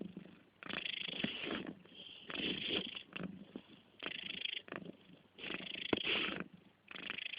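Cat purring in rhythmic, raspy breaths as it drifts off to sleep, each breath about a second long with short pauses between.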